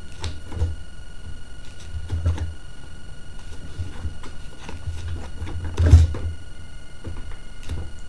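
Hand-spun plastic pinwheel rotor of a homemade wind generator turning, with an uneven low rumble and scattered light clicks and knocks; the loudest knock comes about six seconds in.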